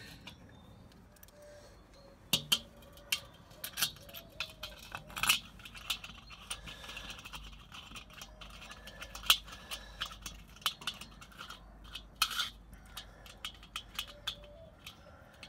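Irregular light metallic clicks and clinks, a few louder than the rest, as the inner part of a BBQ Guru universal adaptor is handled and screwed on against the steel bowl of a Weber kettle grill.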